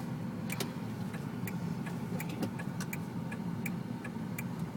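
Car turn-signal indicator clicking at a steady pace, about one and a half clicks a second, over the low hum of the engine and road noise inside the car's cabin.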